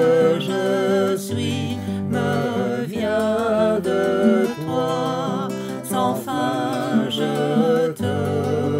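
Worship song with acoustic guitar accompaniment under a sung melody with vibrato.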